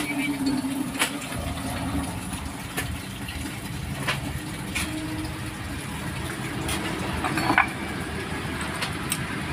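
A motor vehicle engine idling steadily, with a few scattered light clicks.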